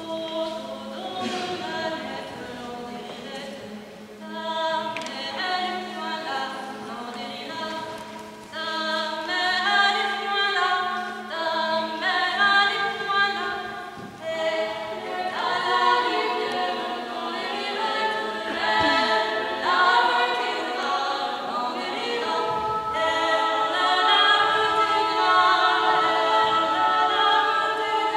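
Three women's voices singing a cappella in close harmony, with no instruments, growing louder about eight seconds in.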